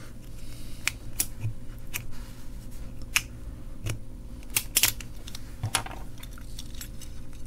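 A string of separate sharp plastic clicks and snaps as the black plastic case of a cheap USB car charger is prised apart at its seam with a green plastic pry tool.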